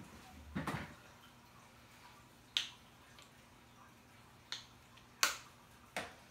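Gloved hands handling small salon items, making about five sharp, irregular clicks and taps; the loudest comes a little past five seconds in.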